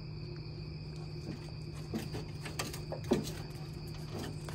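Steady chirring of night insects over a low hum, broken by a few short sounds from the playing puppies, the loudest about three seconds in.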